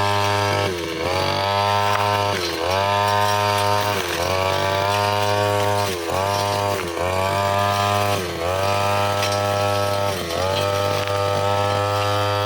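Brushcutter fitted with a metal cutting blade running at high revs, its engine note dipping briefly and recovering about every second or two as the blade bites into tough grass and small stems.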